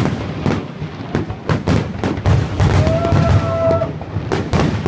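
Fireworks display: a rapid, irregular run of aerial shell bangs and crackles. A short, steady held tone sounds about three seconds in.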